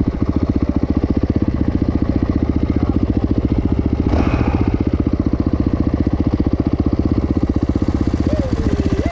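A 450 cc single-cylinder four-stroke dirt bike engine idling with a steady, even pulse, just after starting.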